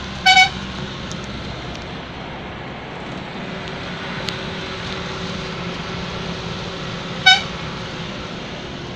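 Steady engine and road noise heard from inside a moving vehicle on a winding hill road. Two short horn toots sound over it, one just after the start and one near the end.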